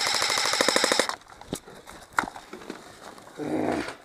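Airsoft gun firing a rapid full-auto burst that stops about a second in, followed by a few scattered single shots.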